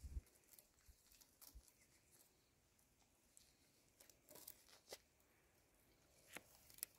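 Faint, scattered rustling and snapping of leafy thorn branches as a baby giraffe pulls leaves off them, with a short cluster of rustles about four seconds in.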